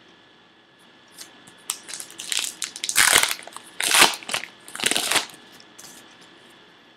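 Wrapper of a 2013 Topps Archives baseball card pack being torn open and crinkled by hand: scattered crackles from about a second in, then three loud bursts of crinkling near the middle.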